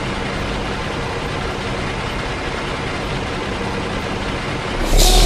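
Scania truck's diesel engine running steadily; near the end it suddenly gets louder and deeper, with a short hiss.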